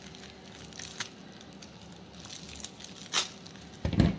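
Clear plastic wrapping crinkling and rustling as a small package is handled and opened, with a sharp crackle about three seconds in. A dull thump near the end.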